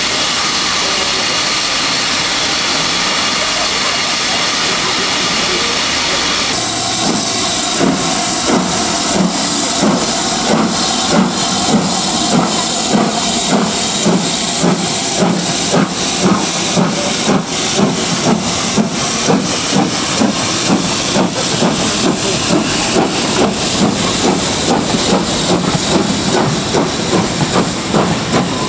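Steam locomotive 'Britannia', a two-cylinder BR Standard Class 7 Pacific: first a steady hiss of steam escaping at the front, then, from about six seconds in, the locomotive pulls away with regular exhaust chuffs, about two a second, quickening slightly toward the end, over continuing steam hiss.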